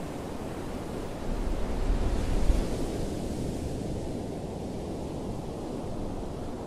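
Sea waves washing ashore, with wind rumbling on the microphone. A wave swells and breaks a little over a second in, the loudest moment, then the surf settles back to a steady wash.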